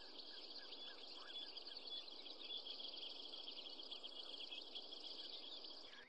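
Woodland ambience: many small birds chirping rapidly and densely over a steady hiss. A short call that slides downward repeats several times over the first second or so. The ambience cuts off just before the end.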